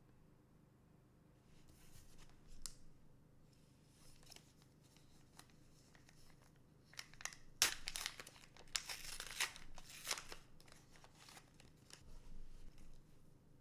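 Plastic booster-pack wrapper handled and torn open, with light clicks and rustles at first and then a stretch of crinkling and tearing from about seven seconds in to about ten and a half.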